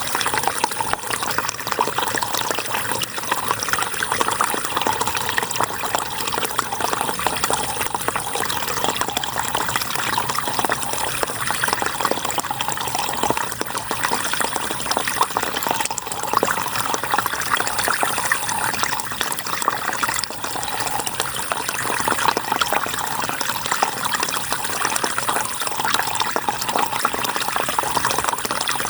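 River water flowing in a steady rushing splash. A faint, thin high tone lasting about a second recurs about every three and a half seconds.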